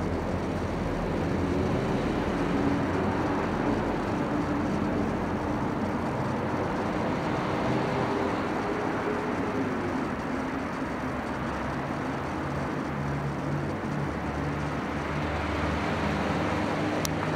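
Steady road-traffic rumble, with a faint engine hum that drifts slowly in pitch.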